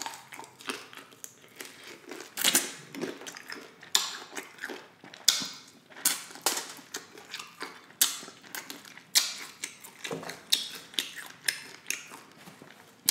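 Crispy fried chicken wing being bitten and chewed: a run of sharp, irregular crunches, a few of them louder than the rest.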